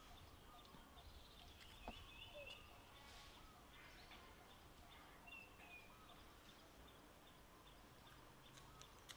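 Very faint outdoor ambience with a few short, high chirps and one soft click.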